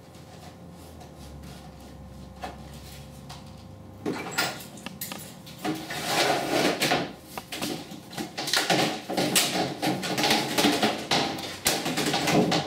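A long vinyl siding panel being handled: the thin plastic flexes, rattles and scrapes against the saw table's aluminum rails in irregular clatters from about four seconds in, after a quieter start.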